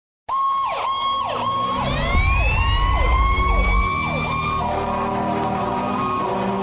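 Electronic sound effect: a steady high tone with repeated falling swoops, about two a second, and a few rising glides. About four and a half seconds in it gives way to background music with held notes.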